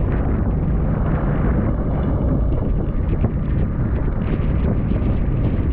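Strong wind buffeting the microphone, a steady heavy rumble, over the wash of choppy sea around a jet ski.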